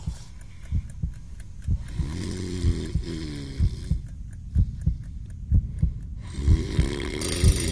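Instrumental stretch of a bass-heavy hip-hop track with no rapping: a deep kick drum hits about twice a second under low, wavering bass tones.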